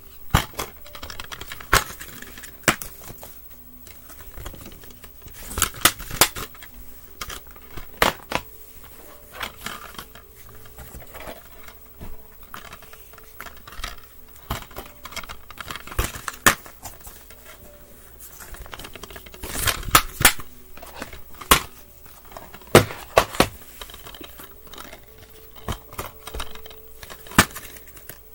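Plastic DVD cases being handled: irregular clicks, taps and knocks, loudest and thickest a little past the middle.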